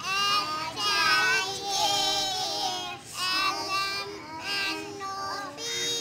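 A young boy singing a nursery rhyme solo in a high child's voice, in short held phrases with brief pauses between.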